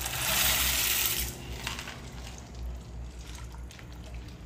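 Dry short tube pasta (padre nosso) poured from a small bowl into a pot of hot soup, a loud rush of pasta hitting the liquid for about the first second, then a few quieter light clicks.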